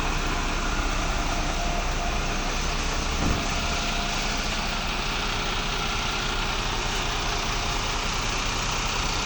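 Fire truck's engine idling steadily, with a brief knock about three seconds in.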